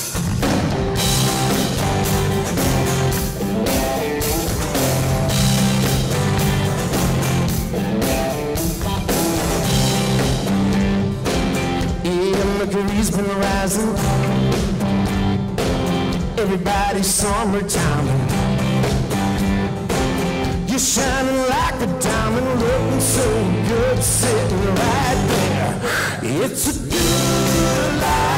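Live country-rock band playing: drum kit, acoustic and electric guitars, with a man singing lead.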